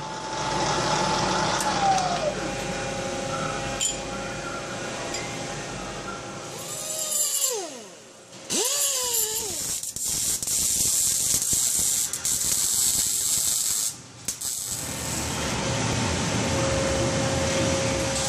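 A milling machine spindle runs a step drill bit through a steel header collector for an oxygen-sensor bung, a steady whine that drops in pitch once, then falls and rises again around 7 to 9 seconds. From about 8.5 seconds the bung is welded on: a steady crackling hiss, broken briefly near 14 seconds, then carrying on.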